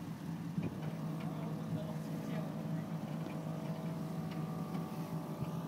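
A vehicle engine idling steadily: a constant low hum, with a thin higher whine joining about half a second in.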